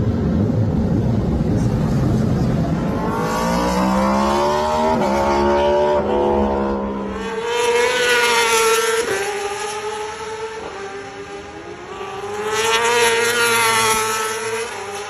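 Superbike engines at high revs. A deep rumble gives way to an engine note that climbs and drops back twice with upshifts as a bike accelerates. Two loud passes follow a few seconds apart, each rising and fading.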